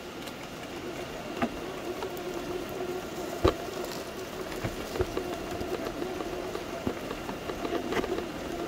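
Traxxas TRX-6 RC crawler's electric motor and geared drivetrain whining steadily as it crawls slowly, with scattered clicks and knocks, the sharpest about three and a half seconds in.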